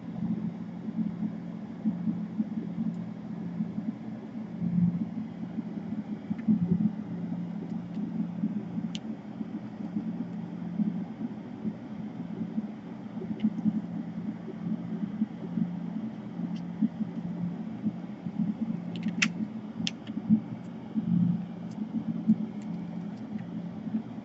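A steady low hum, with a few small sharp clicks about three-quarters of the way through.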